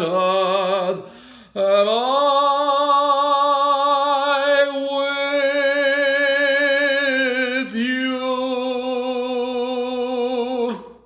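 A man singing unaccompanied, holding the last long notes of the song with a wavering vibrato. There is a short break about a second in, then one long sustained note and a second one that ends the song near the end.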